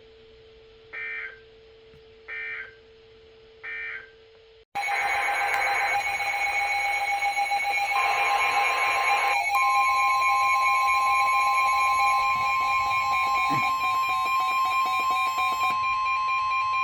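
Emergency Alert System broadcast: three short bursts of the digital header code, then from about five seconds in a loud, steady electronic alert tone made of several tones sounding together. A further steady tone joins a few seconds later.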